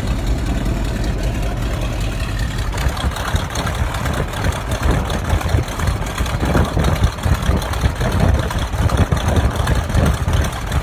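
Boeing Stearman's radial engine idling at about 500-600 RPM just after a cold start, warming up with oil temperature still low. From a few seconds in, gusts of wind buffet the microphone over the engine sound.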